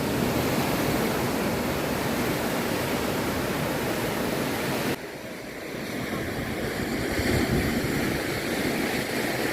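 Sea surf washing onto a sandy beach, a steady rushing noise. It drops off suddenly about halfway through, then swells back up.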